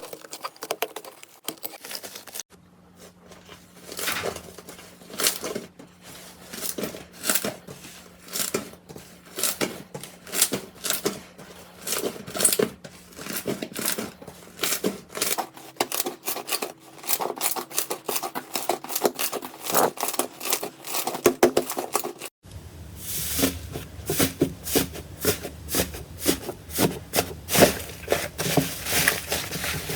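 Slime being squeezed, poked and stretched by hand: a long run of wet clicks, pops and crackles, with a faint steady hum underneath that changes twice.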